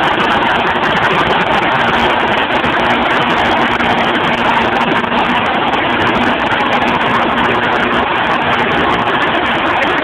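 Portable sawmill running, a loud steady engine-and-machine noise that holds without a break.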